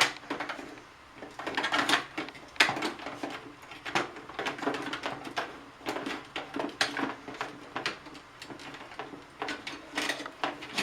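Plastic parts of a Keurig coffee maker being handled and worked loose during disassembly: irregular clicks, taps and clatter throughout.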